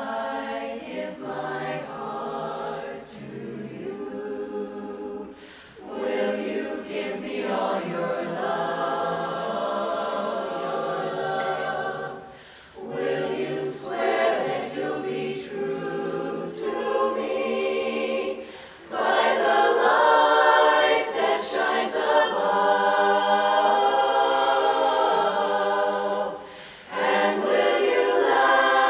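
Women's chorus singing a cappella, in phrases with short breaks between them, growing louder about two-thirds of the way through.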